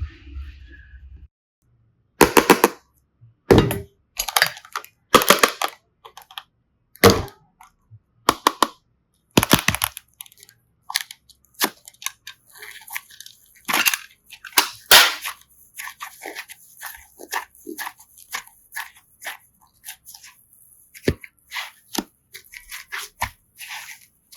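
Slime being squeezed and pressed by hand, giving irregular sharp crackling pops and clicks.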